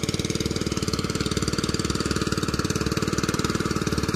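Engine of a water pump draining a pond, running steadily with an even, rapid beat.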